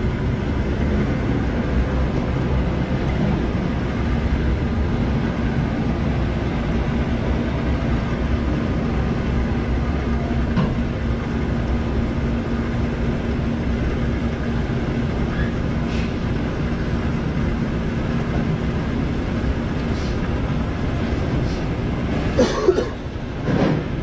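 Diesel being pumped through a filling-station nozzle into a truck's fuel tank: a steady rushing flow with a constant hum under it. Two short sounds break in near the end.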